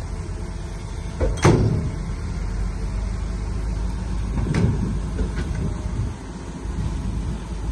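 Bulldozer's diesel engine running steadily under load, with two sharp knocks from the machine, the first about a second and a half in and the loudest, the second a few seconds later.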